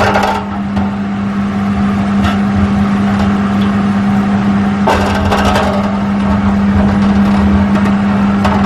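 Spatula scraping and working the bottom of a metal roasting tin as pan juices are deglazed with water, in a few short strokes, over a steady low mechanical hum.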